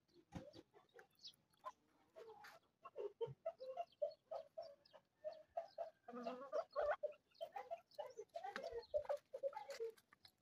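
Aseel hens clucking: a quiet run of short clucks, several each second, beginning about two seconds in.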